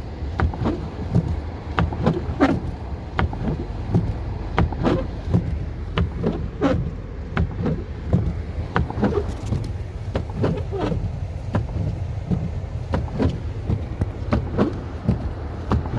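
Car driving slowly on a snow-covered road: a steady low road and engine rumble with frequent irregular knocks and clicks.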